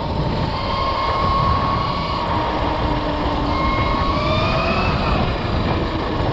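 Electric dirt bike under way, driven by a FarDriver sine-wave controller. A thin electric motor whine sits over heavy wind and tyre rush on the microphone, holds steady at first, then climbs in pitch about four seconds in.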